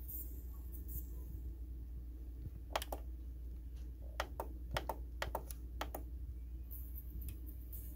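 Sony PS-X555 turntable with its stylus in the groove of a spinning record, before any music is heard: a steady low hum, and a run of sharp clicks, mostly in quick pairs, between about three and six seconds in.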